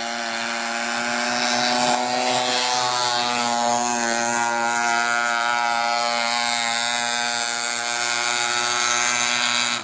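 RC model speedboat's motor running flat out, a steady high buzzing whine that holds nearly one pitch as the boat speeds across the water.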